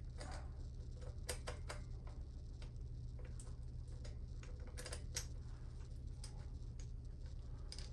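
Scattered light metallic clicks and taps of a hand ratchet and ball socket working the exhaust flange nuts loose, irregular with a small cluster about five seconds in, over a steady low hum.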